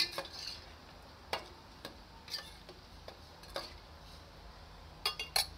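Metal ladle stirring soup in a stainless steel pot, clinking against the pot about once a second, with a quick run of three clinks near the end.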